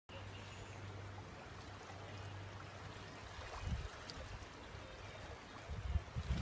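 River water running and lapping around the kayak, with a steady low hum and a few low thumps: one about halfway through and a cluster near the end.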